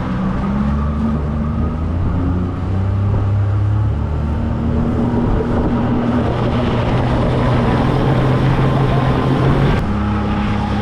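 Outboard motor on a fishing boat running at speed, a steady engine drone over rushing noise; the engine note changes abruptly near the end.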